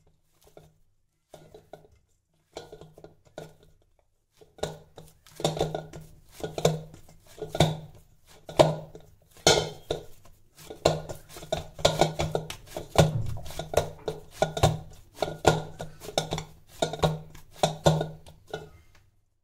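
Hands kneading soft rice-flour and moong dal dough in a stainless steel bowl: repeated dull knocks of dough and knuckles against the bowl. The knocks are sparse at first, then come about two a second from around five seconds in.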